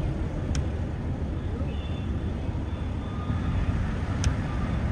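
Car driving along a road: a steady low rumble of road and engine noise, with two short sharp clicks, one about half a second in and one near the end.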